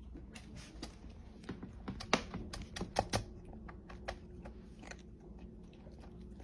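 A run of irregular light clicks and taps, thickest and loudest between about two and three and a half seconds in, over a faint low hum.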